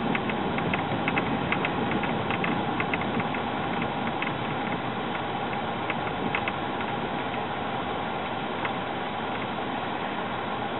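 Steady engine and road noise heard inside the cabin of a 2010 Hyundai Accent as it is driven. Irregular light clicks or rattles come through it over the first six or so seconds, then thin out to a single one later.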